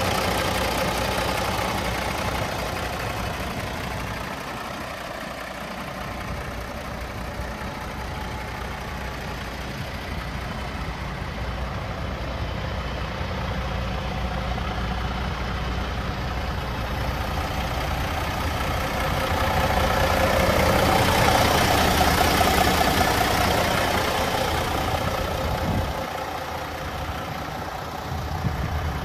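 Cummins X15 inline-six diesel in a Kenworth W900 idling steadily, with a low, even hum. It grows louder for a few seconds about two-thirds of the way through.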